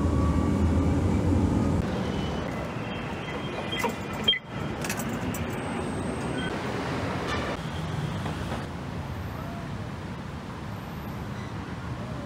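Low rumble of a moving passenger vehicle heard from inside for about two seconds, then softer city street ambience with traffic noise and a few sharp clicks near the middle.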